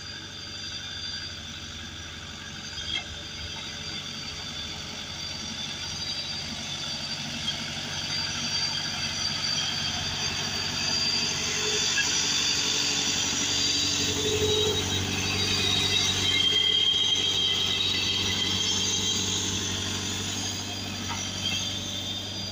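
Sakai R2 three-wheel static road roller's diesel engine running as it rolls slowly past, with high steady squealing and whining from its moving parts. It grows louder as the roller comes close, about halfway through, then eases off.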